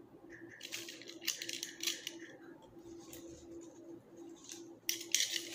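Scissors snipping leatherleaf fern stems, with the fronds rustling, in a cluster of sharp cuts about a second in and another near the end. A steady low hum runs underneath.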